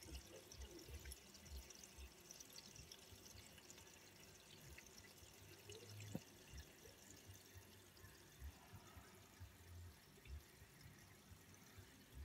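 Faint bubbling and trickling of aquarium filters, with fine crackling ticks of small bubbles at the water.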